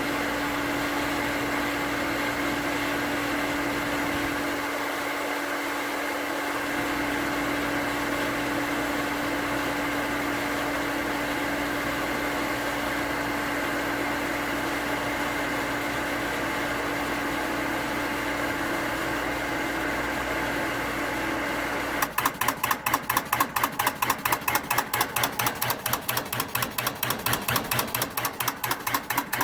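A 1 hp cast iron shallow-well booster pump motor runs steadily with a hum while pumping up the pressure tank. About 22 seconds in, the tank reaches cut-off and it breaks into rapid, even clattering several times a second: pressure switch chatter, the switch contacts opening and closing so that the pump short-cycles.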